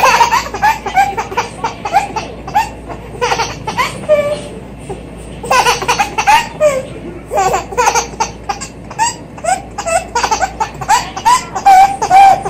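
A baby laughing hard in long runs of high-pitched giggles, with short pauses about four and a half and seven seconds in.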